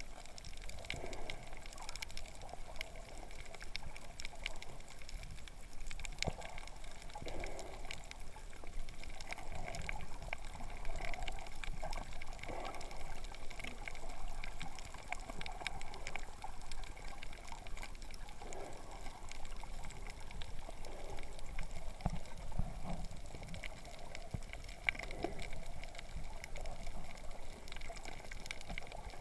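Underwater sound of a shallow coral reef heard through an action camera's waterproof housing: a steady hiss with many scattered faint clicks and occasional muffled swishes of water.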